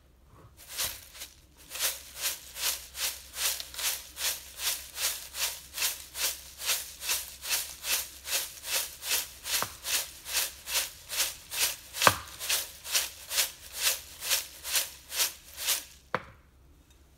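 Dry, crisp corn flakes chivda being tossed and stirred in a glass bowl, a crunchy rattling rustle at an even beat of about two strokes a second. A few sharp knocks come as the spatula strikes the glass.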